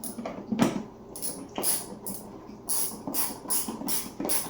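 Screws being driven back into a refrigerator's dispenser panel: a quick run of about nine short, sharp noises, some only a third of a second apart.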